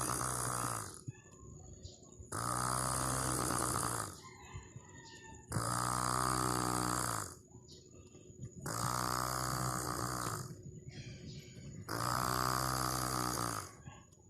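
A sleeping person snoring in a steady rhythm: a long, loud snore about every three seconds, with much quieter breathing between.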